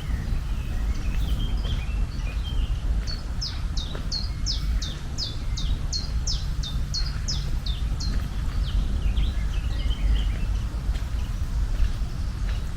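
Birds chirping over a steady low rumble: from about three seconds in, one bird gives a quick run of short, high, downward-sweeping chirps, two to three a second for about five seconds, with softer chirps from other birds around it.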